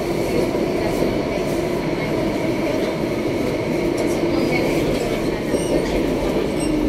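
Running noise of a refurbished Alstom Metropolis C751A metro train in motion, heard on board: a steady rumble with a steady hum that settles a little lower in pitch near the end.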